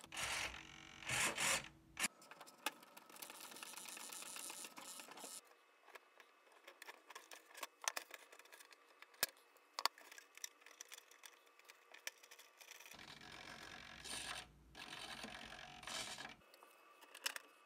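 Faint scattered clicks and handling noises as thin steel pushrod wire and the printed plastic fuselage are worked by hand while fitting servo pushrods, with a few slightly louder rustles about a second in and near the end.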